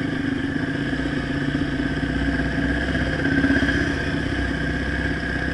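Dirt bike's single-cylinder four-stroke engine running steadily, swelling briefly about halfway through.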